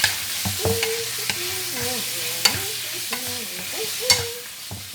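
Chicken pieces sizzling in hot oil in a pan as they are stirred, with a utensil knocking and scraping against the pan about five times.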